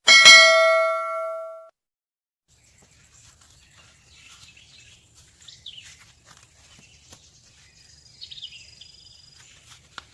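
A bell-like chime rings once and dies away over about a second and a half. After a moment of silence comes a faint outdoor background with a few short high chirps.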